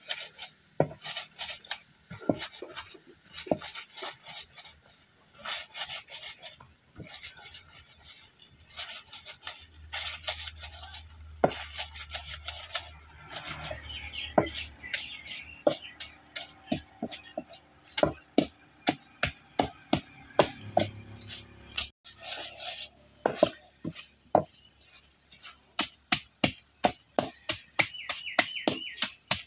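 Wooden masher knocking and scraping against an iron karahi as a fried dried-fish, onion and chilli mixture is mashed. The knocks are irregular, about one to two a second, and come faster near the end.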